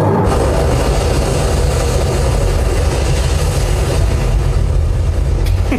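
Action-movie sound effects played through an LG S80TR 5.1.3-channel soundbar: a loud, dense mechanical rumble with heavy bass that starts as the music cuts off. A sharp click near the end is followed by a few falling sweeps.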